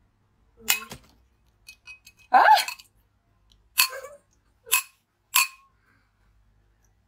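A metal spoon clinking against a glass mug of chilled blue drink, about five sharp taps spread a second or so apart. The taps are meant to set the supercooled drink freezing into slush.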